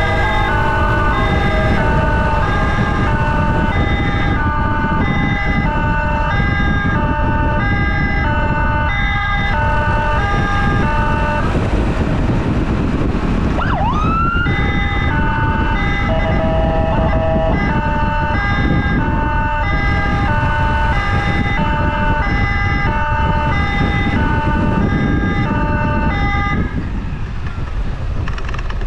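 Emergency siren sounding a two-tone pattern, switching steadily back and forth between two pitches, over wind and road noise from a moving motorcycle. About halfway through it breaks off for a moment with a quick rising sweep, then resumes, and it stops a couple of seconds before the end.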